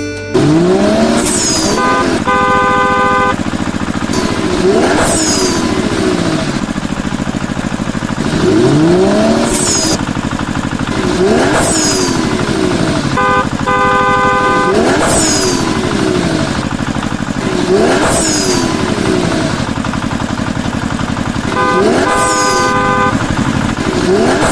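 Added vehicle sound effects: an engine drone whose pitch rises and falls again and again, with a short horn honk three times, about every ten seconds.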